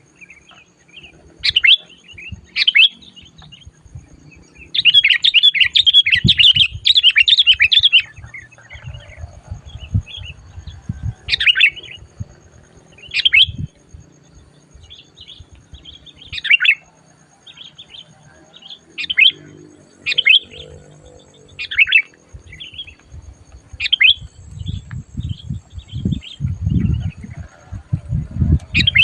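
Sooty-headed bulbul (kutilang) calling in short, sharp chirps every second or two, with a rapid burst of chattering calls about five seconds in. Low thumps, heavier near the end, run underneath.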